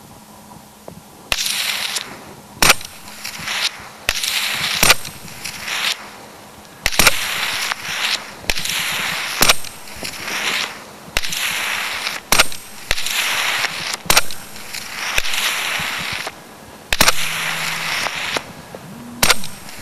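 Rifle shots fired at a herd of snow sheep, about a dozen sharp cracks at uneven intervals, with a rushing hiss between them.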